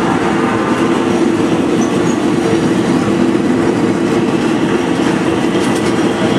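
Diesel passenger train running at a steady speed, heard from inside the front of the train: a continuous drone with rumbling wheel-on-rail noise.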